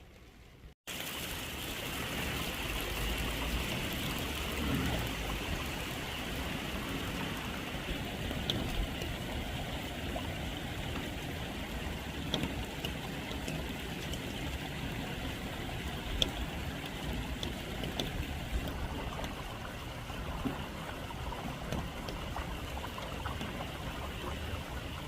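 Steady rain falling, with running and dripping water and scattered small drip clicks. It starts abruptly just under a second in.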